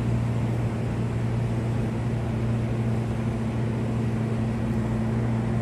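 A heavy machine's engine running steadily at idle, an even low hum with no change in speed.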